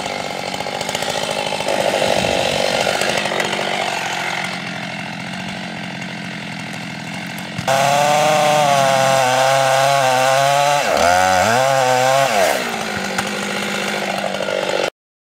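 Chainsaw running under load, cutting into a cedar of Lebanon log. About eight seconds in it gets louder, with a clear engine whine that dips and rises as the revs change, then it cuts off suddenly near the end.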